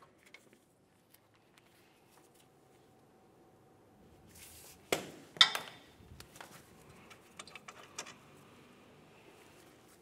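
Quiet handling of brake parts and tools: after a few near-silent seconds, a short scrape and then two sharp clinks about five seconds in, followed by a few soft taps and rustles.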